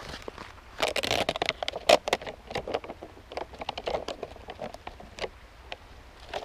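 Camp cookware being handled: a quick, irregular run of small clinks, knocks and clatter, busiest in the first few seconds and thinning out towards the end.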